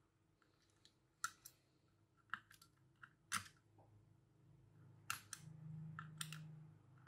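Scattered light clicks and taps of small tools and parts handled on a phone being taken apart for repair, about eight separate clicks over several seconds, with a faint low hum near the end.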